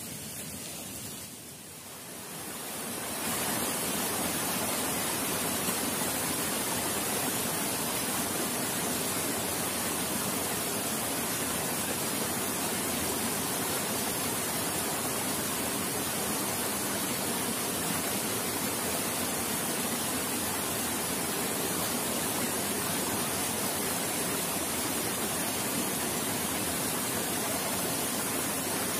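Steady rushing of flowing water, coming in about three seconds in and holding level, with a high hiss over it.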